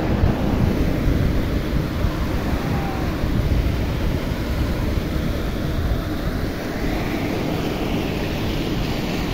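Sea waves washing in on the shore, a steady surf noise, with wind rumbling on the microphone.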